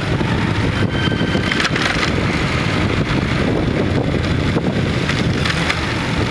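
Road traffic on a rain-wet city street, a steady rumble of engines and tyres, with wind buffeting the microphone.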